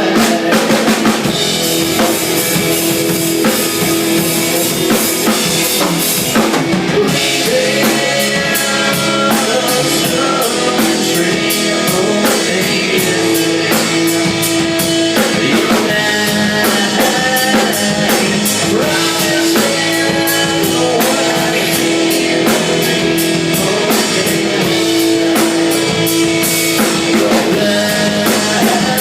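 Rock band playing live at a sound check. The drum kit drives a steady beat, with bass drum and snare prominent, under held instrument notes, and a cymbal crash about six seconds in.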